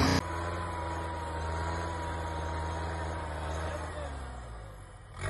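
Off-road pickup truck's engine running at low revs with a steady low hum and a faint steady whine; about four seconds in, the engine note falls as the revs drop.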